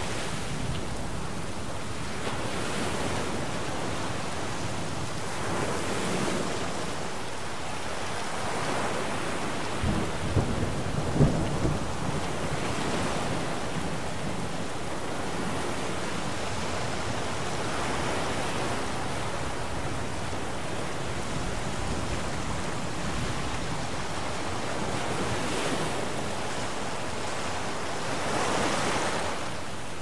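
Storm at sea: rain and wind over waves breaking in swells every few seconds, with a short rumble of thunder and a few sharp cracks about ten seconds in.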